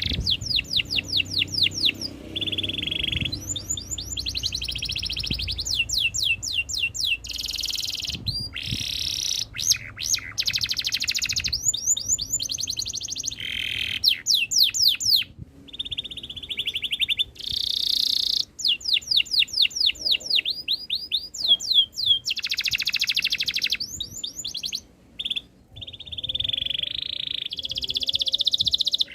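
Domestic canary singing continuously: long phrases of fast repeated trill notes alternating with buzzing rolls, broken by brief pauses.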